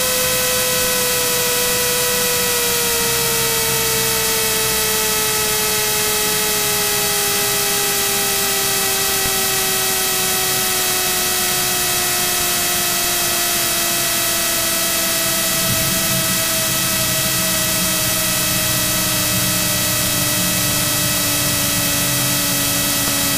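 Cirrus SR22's six-cylinder engine and propeller at idle in the cockpit, a steady drone whose pitch slowly falls as the airplane slows on landing, over a constant electrical hiss and whine.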